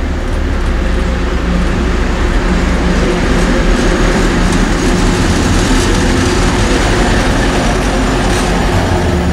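Heavy six-axle diesel locomotive of the Soviet-built 'Ludmilla' type passing close by with a freight train of flat wagons: a steady, deep engine drone that grows louder over the first few seconds as it approaches, then stays loud, with wheel and rail noise as it goes by.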